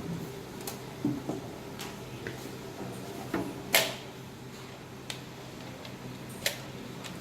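Scattered clicks and knocks of objects being handled, several light ones and a sharper one a little under four seconds in, over a steady low hum.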